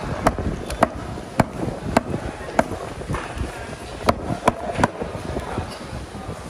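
Large curved cleaver chopping trevally on a wooden chopping block: about nine sharp chops, roughly one every half second, with a quicker run of three about four seconds in, then the chopping stops.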